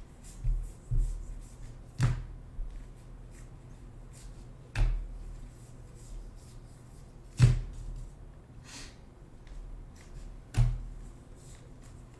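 A few separate sharp taps and knocks, about six spread over twelve seconds, from trading cards and packs being handled and set down on a tabletop; the loudest comes about seven and a half seconds in.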